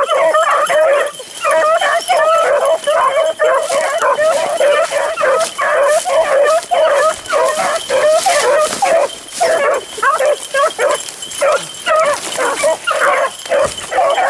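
A pack of beagles baying together as they run a rabbit, many overlapping cries with hardly a pause.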